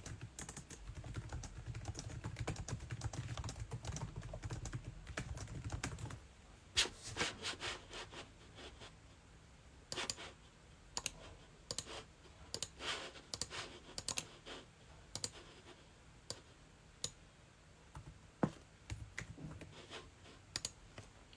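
Typing on a computer keyboard: irregular runs of short key clicks with pauses between them. A low rumble sits under the typing and stops about six seconds in.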